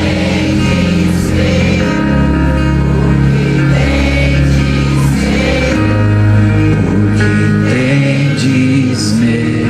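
Live worship music: a band holding sustained chords over a steady bass line, with voices singing.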